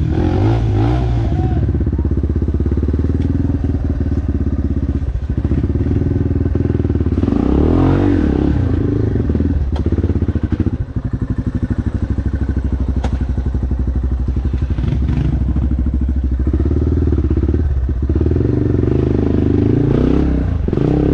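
Dirt bike engine running under the rider's throttle, its revs rising and falling several times, with brief drops in revs about five and ten seconds in.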